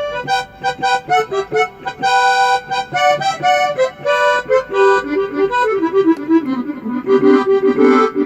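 Keyboard accordion sample for cumbia played as a run of quick melodic notes and chords, recorded through a phone.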